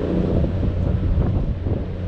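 Wind buffeting the microphone over a steady low engine drone.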